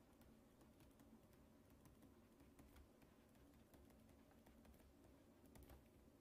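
Near silence with faint, irregular taps and clicks of a stylus writing on a tablet screen.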